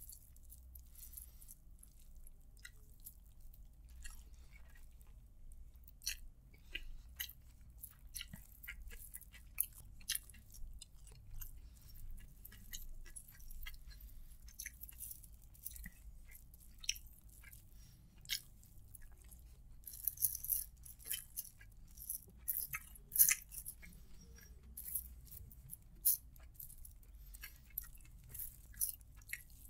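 Bare hand mixing and squeezing chicken biryani on a plastic sheet: soft squishes of the rice and many short crinkles and clicks of the plastic, irregular and busier about two-thirds of the way through.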